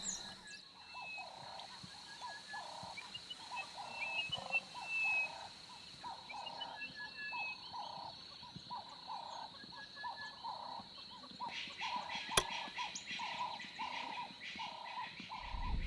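Bush ambience: an animal call repeated about one and a half times a second at a steady pace, over a steady high insect trill, with a few short bird chirps and one sharp click about twelve seconds in.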